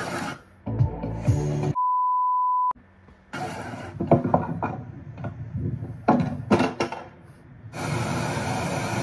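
Audio from short water and pool fail clips with music under it. About two seconds in, a steady high beep sounds for about a second and stops abruptly, like a censor bleep.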